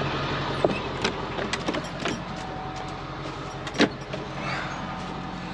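Clicks and knocks of a camper van's side door being opened and someone climbing into the box, the loudest a sharp knock near the end, over a steady low hum.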